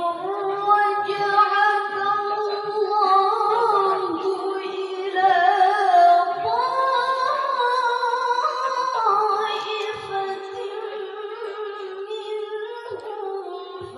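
A woman's melodic Quran recitation (tilawah), one long ornamented phrase held on a single breath, climbing in pitch to a peak about six seconds in and settling back down. It is amplified through a handheld microphone.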